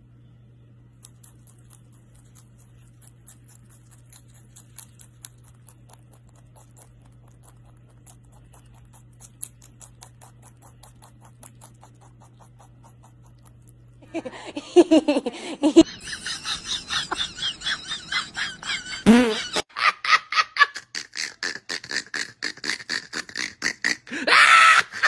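A rabbit chewing leaves: faint, fine crunching clicks over a low steady hum. About 14 seconds in, a chihuahua takes over, loud, with fast pulsing growls and yaps several a second and a longer high cry near the end.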